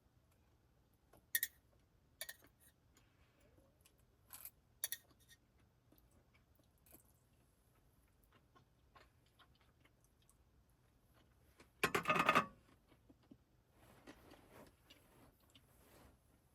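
Small objects being handled: a few sharp clicks and taps, a louder clatter lasting about half a second near the middle, then soft rustling.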